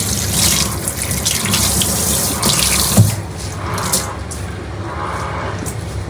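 Kitchen tap running onto a cloth being rinsed in a stainless steel sink. About halfway through there is a sharp knock, and the flow thins to quieter splashing.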